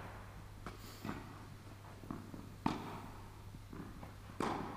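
Tennis balls being struck and bouncing on an indoor court: a few separate sharp knocks, the strongest about two and a half seconds in and near the end.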